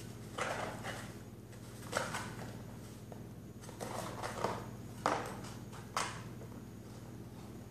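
A cardboard tube being batted, clutched and scraped across a ceramic tile floor by a playing cat, in short scuffing, clattering bursts about every second or two. A steady low hum runs underneath.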